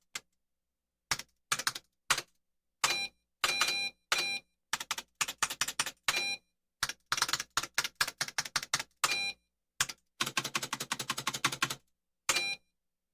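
Rapid typewriter-style clacking cartoon sound effect, heard as a string of separate short clips with dead-silent gaps between them. Several of the clips carry a short, steady high ring alongside the clatter.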